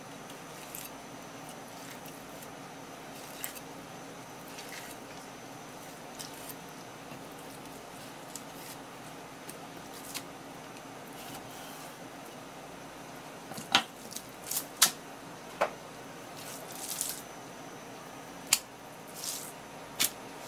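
Knife and wet fish on a wooden cutting board as a sea bream fillet is skinned: soft scraping with faint ticks, then a cluster of sharp clicks and taps in the second half and a few short swishes, over a steady background hiss.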